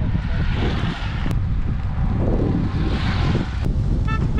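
Heavy wind buffeting on the microphone of a moving vehicle, over a steady engine and road rumble, with two sharp clicks. A horn starts sounding near the end.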